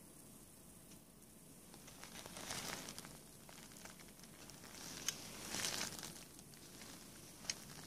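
A thin white wrapping sheet crinkling and rustling in the hands holding a sword blade, in two louder stretches, with a couple of short sharp clicks.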